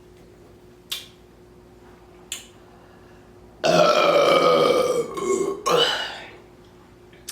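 A woman burps loudly after gulping sparkling water: one long burp about halfway through, falling in pitch, then two shorter burps close behind. Two short sharp clicks come before it.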